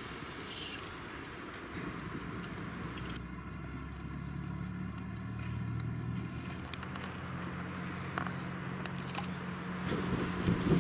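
Pot of stew boiling hard over an open wood fire: steady bubbling with the fire crackling, and a low steady hum that comes in about two seconds in.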